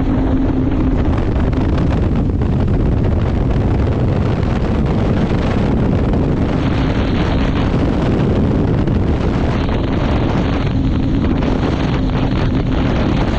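A small boat's engine running steadily under way, with a steady low hum, mixed with heavy wind buffeting the microphone.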